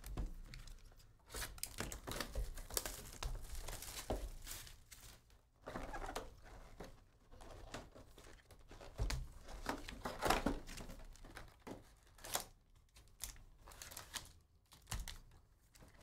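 Plastic wrapping of a trading-card hobby box and its packs crinkling and tearing as they are opened, in irregular rustles with short gaps.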